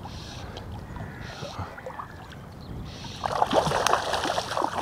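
Water splashing and sloshing close by, starting about three seconds in after a quieter stretch: a hooked sea trout thrashing at the surface as it is brought in.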